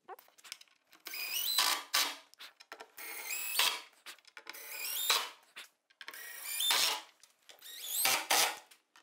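Cordless drill driver driving screws into multiplex plywood in about five short bursts, the motor whine climbing in pitch with each pull of the trigger.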